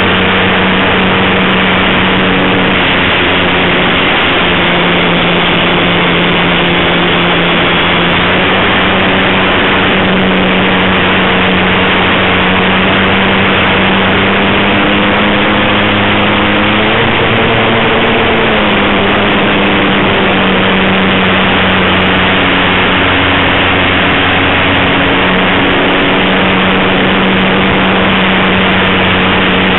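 RC model airplane's motor and propeller running steadily in flight, heard from the onboard camera with wind rushing over the microphone; the motor's pitch rises briefly about halfway through, then settles back.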